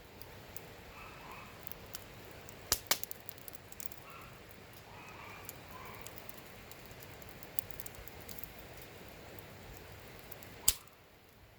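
Wood campfire crackling, with scattered sharp pops and two louder cracks, one about three seconds in and one near the end.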